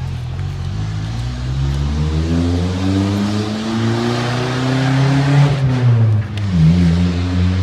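Car engine accelerating, its pitch rising for a few seconds, then dropping suddenly about six seconds in and settling to a steady run.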